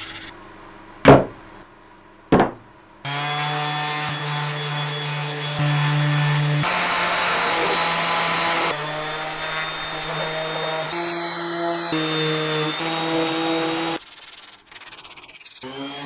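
Two sharp knocks, then an electric orbital sander runs against wood. Its steady motor hum and high whine jump in pitch at several abrupt changes, then it stops near the end.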